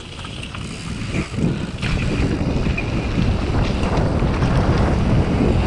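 Wind rushing over an action camera's microphone as a downhill mountain bike rolls fast down a dirt trail. It grows louder as the bike picks up speed.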